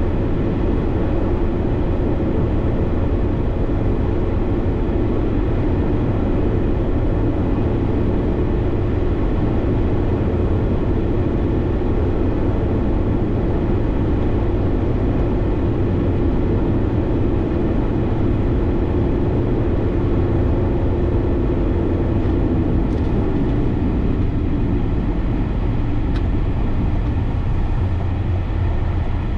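Steady road noise inside a car cruising on the highway: tyre roar and engine hum heard from the cabin, unchanging throughout.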